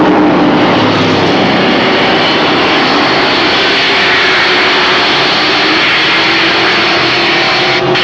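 A field of race trucks running at racing speed around a short oval, their engines blending into one loud, steady drone.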